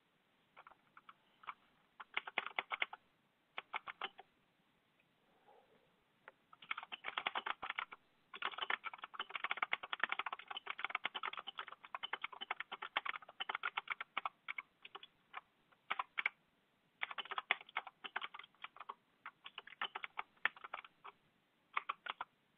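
Typing on a computer keyboard: bursts of rapid keystrokes with short pauses between, and a long unbroken run of typing through the middle.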